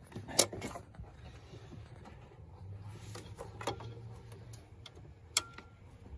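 Plastic clicks and handling noise as hands work the tab on a Ford Escape low beam headlight bulb's wiring connector, trying to lift the clip and pull it off. There are several sharp clicks, the loudest about half a second in and another near the end.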